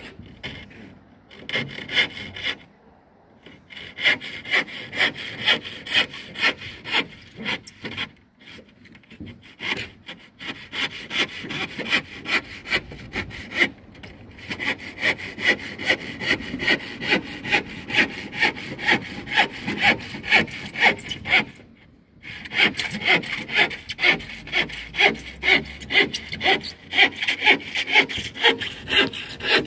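Handsaw cutting through a plywood sheet in steady back-and-forth strokes, about two a second. There are short pauses about three seconds in, around nine seconds and just after twenty seconds.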